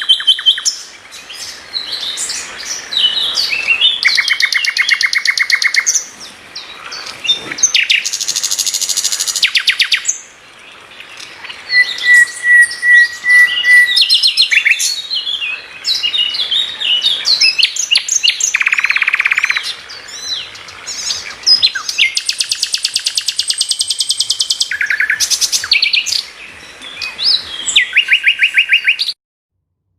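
Masteran recording of competition songbirds: a dense run of high-pitched chirps, fast rattling trills several seconds long and a short steady whistled note, cutting off suddenly just before the end.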